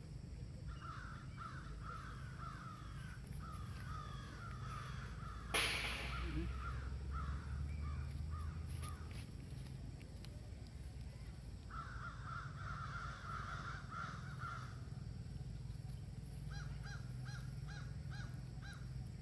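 Runs of rapid, short chirping animal calls, several a second, pausing and starting again, then a slower string of about six short calls near the end. A single sharp click sounds about five and a half seconds in.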